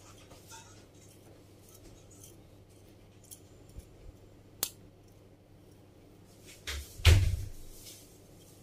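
Metal spoon clicking and knocking against a ceramic baking dish while spreading shredded cheese: a few light clicks, then a louder knock with a low thud about seven seconds in.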